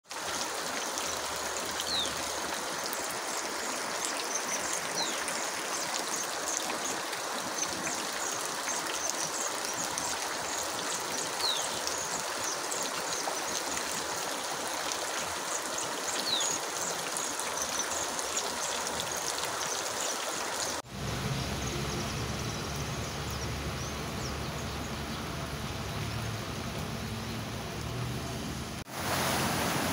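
Floodwater rushing steadily, a continuous even wash of running water. About two-thirds of the way in, the sound cuts to a different recording with a deeper rumble underneath, and it cuts again near the end.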